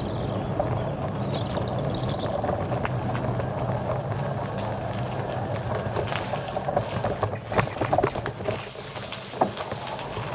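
Bicycle rolling along a road: steady tyre and wind noise on the microphone, with a few sharp clicks and knocks from the bike about three quarters of the way through.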